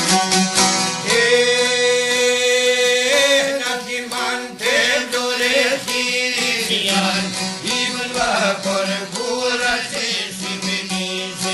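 Albanian folk song with a singing voice over rapidly plucked long-necked çifteli lutes. About a second in, the voice holds one long high note for about two seconds, then moves into ornamented, shifting phrases.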